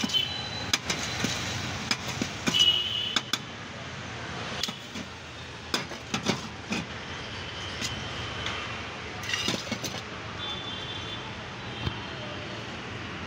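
Steel spoon clinking and scraping against stainless-steel containers as boiled sweet corn and spices are scooped into a paper cup, with short sharp knocks and brief metallic rings scattered through. Steady street traffic noise runs underneath.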